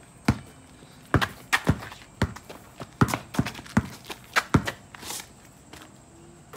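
Basketball dribbled on an asphalt driveway: about ten sharp, unevenly spaced bounces.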